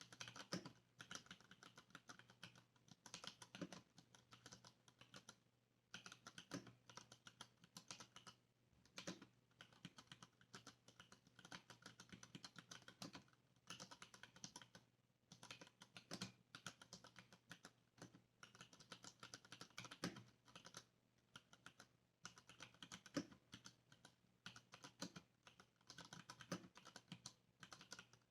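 Typing on a Varmilo mechanical keyboard with stock Cherry MX Brown switches, tactile and non-clicky: quick runs of keystrokes with short pauses between them.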